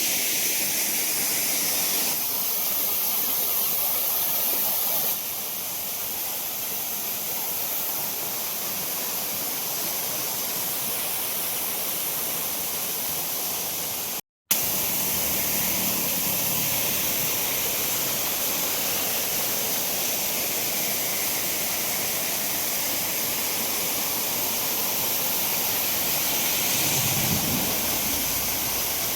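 Monsoon waterfall with a steady rush of falling water. The sound cuts out for a split second about halfway through.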